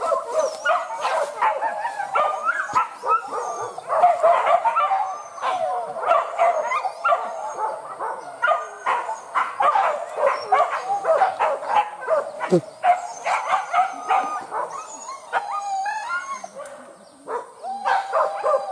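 A pack of hunting dogs barking on a wild boar chase: many short calls from several dogs overlapping without a break, easing briefly near the end.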